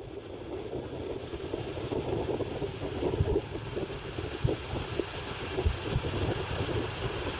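Passenger train of old N-coaches rolling into a station: steady rumble with scattered knocks from the wheels, and a hiss that builds toward the end. Wind is on the microphone.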